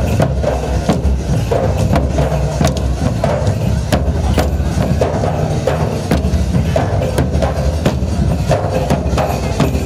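Gair dance music: big drums beating steadily while the dancers' wooden sticks strike together in sharp, rhythmic clacks.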